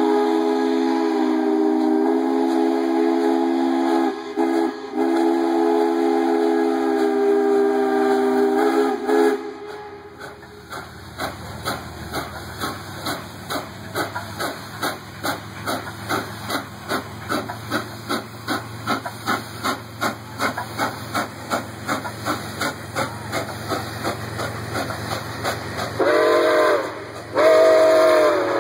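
Nickel Plate Road 765, a 2-8-4 Berkshire steam locomotive, sounding its whistle in a long blast of several notes at once, broken briefly twice. Then it chuffs in a steady rhythm of a few exhaust beats a second as it pulls out under power. Near the end the whistle sounds two more short blasts.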